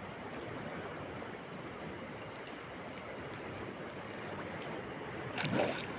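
Steady rushing, sloshing noise of shallow water close to the phone, with a brief louder splash-like burst about five and a half seconds in.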